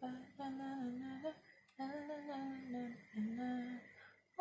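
A woman humming a slow tune: three short phrases of held notes with gentle slides in pitch, separated by brief pauses.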